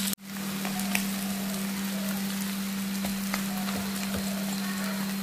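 Ham omelette sizzling steadily in hot oil in a frying pan, its second side frying just after the flip. A few light ticks come from a wooden spatula pressing on it, over a steady low hum.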